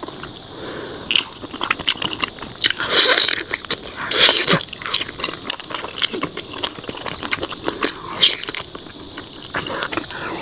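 A person biting and chewing a roasted pig's trotter: a run of small clicking mouth sounds, with a few louder bites.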